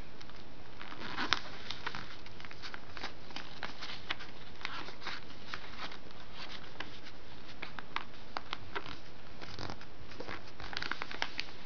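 A sheet of lined notebook paper being folded and creased flat by hand: scattered crisp rustles and ticks of paper over a steady background hiss.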